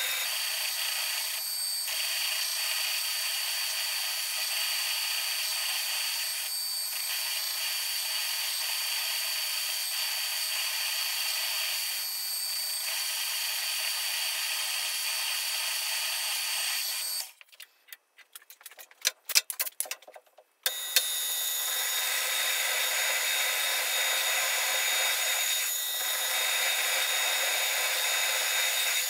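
Metal lathe running with its chuck spinning while it turns a steel workpiece: a steady machine whine over a hiss. After the middle the sound drops out for about three seconds with a few sharp clicks, then the same running sound resumes.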